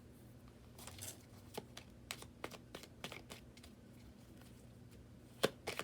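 Tarot cards being handled: a scattering of light snaps and flicks as cards are shuffled and drawn, with a louder cluster near the end.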